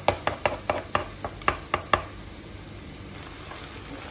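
Spoon tapping quickly against a stone-coated frying pan, about four taps a second, as tomato paste is pressed and spread in it; the taps stop about two seconds in, leaving the soft sizzle of tomato paste frying with meat and onion.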